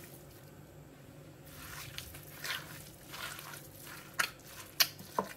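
Raw minced meat with ground spices being kneaded and squeezed by hand in a glass bowl: soft, wet squishing in irregular strokes, starting about a second and a half in, with a few sharper clicks near the end.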